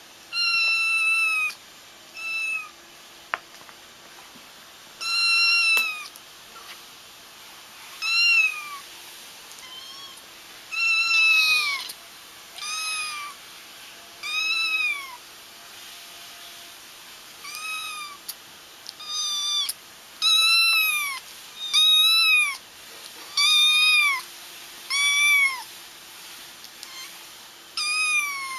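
Kittens meowing: a string of short, high-pitched meows, each rising and then falling in pitch, one every second or two.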